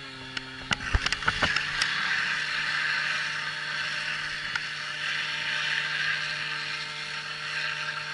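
Portable fire pump engine running steadily at high revs, pushing water through the hose lines during a fire-attack run. About two seconds in, a strong rushing hiss of flowing water comes in and holds. A few sharp clicks and knocks come before it.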